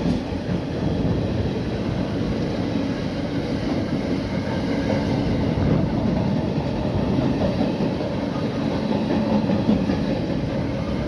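Loaded double-deck car-transporter freight wagons passing close by at speed, a steady rumble of wheels on rail.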